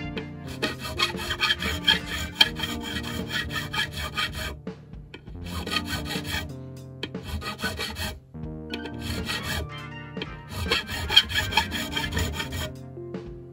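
Fret crowning file rasping back and forth over a bass guitar's metal fret in quick strokes, with a few short pauses, rounding the fret's top after levelling. Background music plays underneath.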